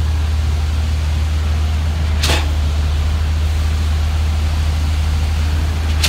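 Steady low engine drone of heavy concrete-pouring machinery, with a short hiss a little over two seconds in.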